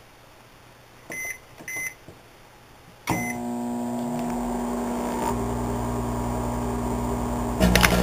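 Microwave oven keypad beeping twice as the time is entered, then a third beep as the oven starts and runs with a steady hum. Near the end a short, loud burst of crackling as a 100-kilohm resistor on a loop antenna inside flashes into plasma and carbonizes.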